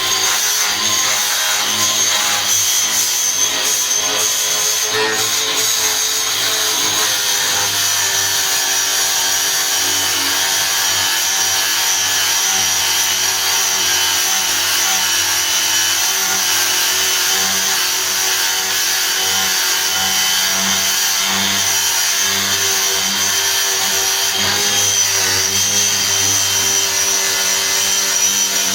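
Electric power sander running steadily against a fiberglass rudder, grinding away the osmosis-damaged fiberglass layers, with a continuous hum and a high whine.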